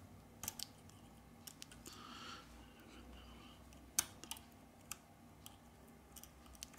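Faint, scattered small clicks of a plastic pry tool unclipping the rear camera flex-cable connectors from a Redmi Note 8 motherboard, with one sharper click about four seconds in.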